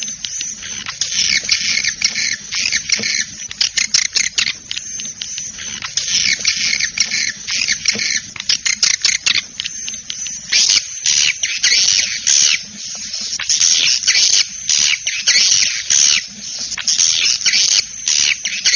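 Swiftlet calls, played from a recorded lure track used to draw swiftlets into a nesting house: a dense, fast twittering of high chirps and clicks that goes on without a break.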